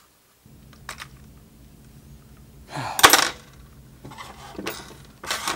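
Plastic parts and gears of a cheap mini sewing machine's opened housing clicking and clattering as it is handled, with a loud clatter about three seconds in and a shorter one near the end.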